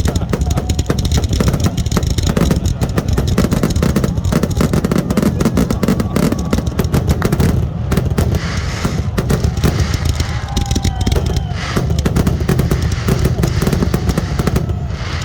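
Fireworks finale: a continuous rapid-fire barrage of bangs and crackles with no gaps between bursts.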